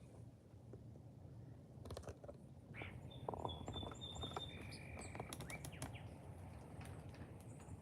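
Wild birds calling: short whistles, some held level and some rising, mixed with clusters of quick sharp clicks about two seconds in and again around five seconds in, over a faint steady outdoor background.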